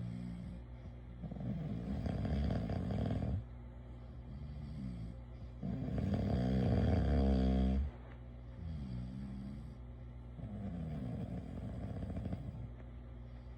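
A person snoring in sleep: two loud, rough snores about four seconds apart, each about two seconds long, with quieter breaths between them that slide up and down in pitch.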